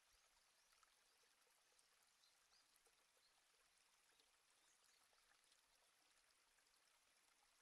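Near silence: a faint underwater hiss with many scattered tiny ticks.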